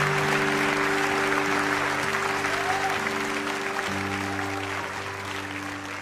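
Applause over the song's closing instrumental chords, which are held and change twice, all fading out gradually.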